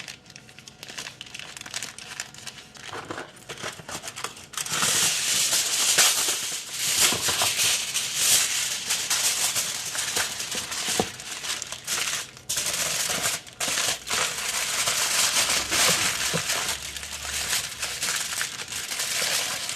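Aluminium foil crinkling and crumpling as a raw seitan sausage is rolled up tightly in it. The rustling is softer for the first few seconds, then louder and near-continuous from about four seconds in, with brief pauses.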